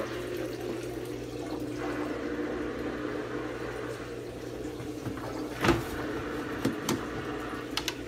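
KUPPET twin-tub washer's built-in drain pump running with a steady hum, emptying the wash water through its drain hose into a toilet bowl, where it gushes and splashes. A sharp knock about two-thirds of the way through and a few light clicks near the end.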